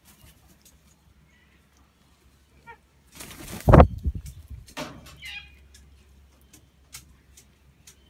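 A bird's wings flapping in a brief rush about three seconds in, ending in a loud thump, with a few short bird calls before and after.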